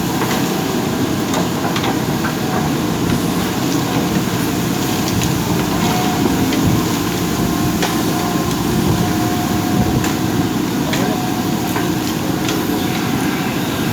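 JCB 3DX backhoe loader's diesel engine running steadily, with a few faint clanks or knocks along the way.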